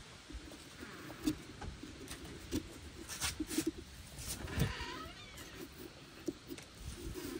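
Knife shaving and cutting into pumpkin flesh: soft scrapes and a few small knocks. A brief, faint high wavering sound comes about five seconds in.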